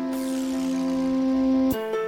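Outro background music: soft instrumental chords held steadily, changing to a new chord near the end.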